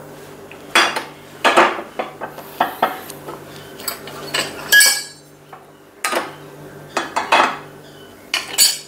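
Metal kitchen utensils clinking and knocking against pans and containers: a dozen or so separate clatters, one with a sharp ringing clink just before the middle, over a faint low hum.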